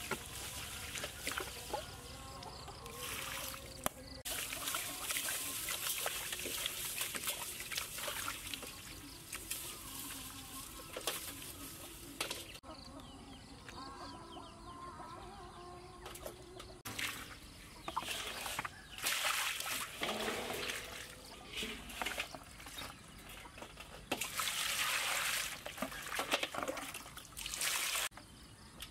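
Water pouring and splashing in a stainless steel basin as skinned frogs are rinsed and rubbed by hand, coming in several spells with a quieter pause near the middle.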